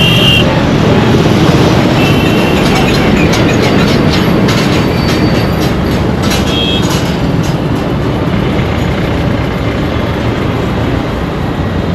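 Steady, loud rumble of passing vehicles, with a run of rapid clattering clicks through the middle and a few short, high horn toots.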